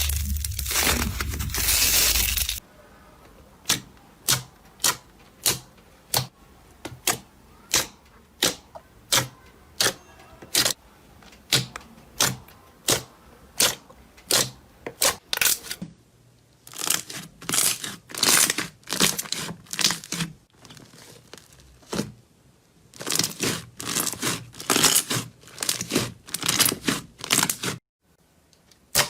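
Slime being handled: a loud crunching squeeze for the first two seconds or so, then sharp clicks and pops about twice a second, then denser clusters of crackling pops from about halfway through.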